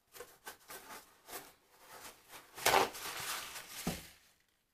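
Painting tools being worked on an oil-paint palette: a run of light, irregular taps and scrapes, a longer scrape a little before the middle, and a low knock near the end.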